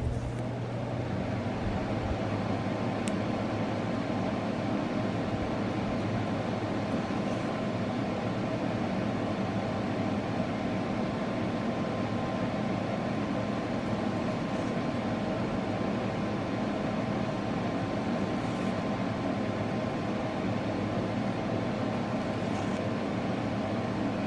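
Steady mechanical hum with a low drone and a faint held higher tone.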